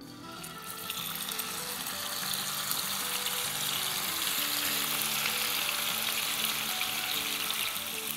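Cream-marinated chicken sizzling as it is tipped into hot oil in a frying pan and spread with a spatula. The sizzle builds over the first couple of seconds, then holds steady.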